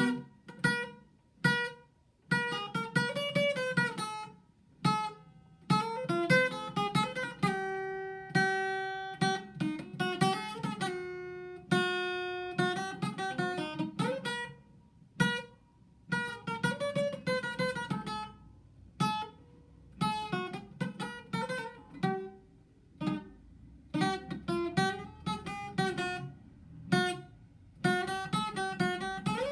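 Acoustic guitar playing: plucked notes and strummed chords in short phrases, with brief pauses between them.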